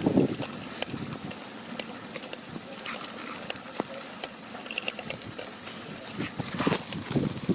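Barbecue grill sizzling and crackling: a steady hiss dotted with frequent small sharp pops.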